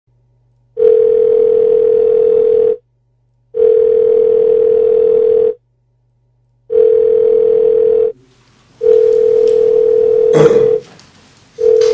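Telephone ringing (ringback) tone of a call being placed, heard on the line: a steady single-pitched tone about two seconds long, repeated four times with short gaps, a fifth starting at the very end.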